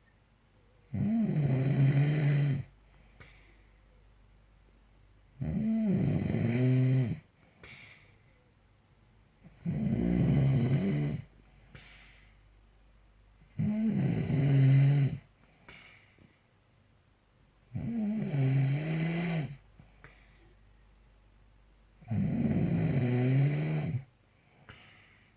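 A man snoring very loud in his sleep: six long, low-pitched snores about four seconds apart, each lasting around a second and a half, with quiet breathing gaps between them.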